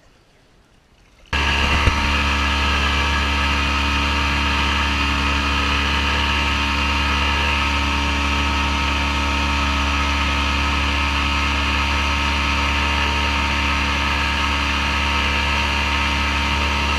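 A Yamaha Enduro two-stroke outboard motor running steadily at speed, pushing a fishing panga, over a steady hiss of wake and wind. It cuts in abruptly about a second in.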